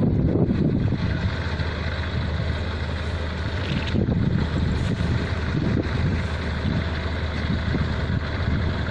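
Diesel engine of rice-harvesting farm machinery running steadily, with a continuous mechanical rumble.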